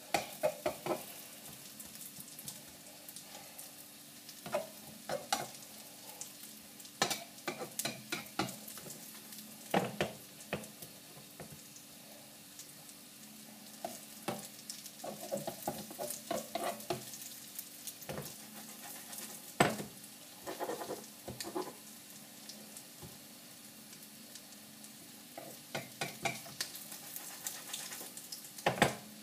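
Potato and egg omelette (tortilla de patatas) frying in a little olive oil in a non-stick frying pan, with a soft steady sizzle. A slotted metal skimmer scrapes and taps against the pan and the pan is moved on the gas burner, giving scattered clicks and knocks in clusters.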